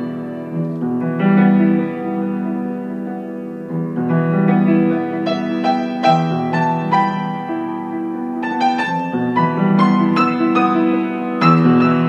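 Piano music: held low chords with a melody of struck notes above them, the notes coming more often after the first few seconds.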